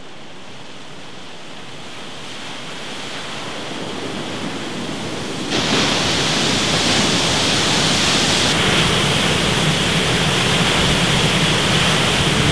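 Water rushing down a concrete dam spillway chute: a steady rush that builds over the first few seconds and jumps louder about five and a half seconds in.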